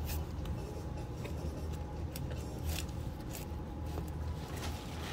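Wind rumbling on a phone's microphone, with a scatter of brief rustles and clicks from handling the phone and brushing the plant's leaves.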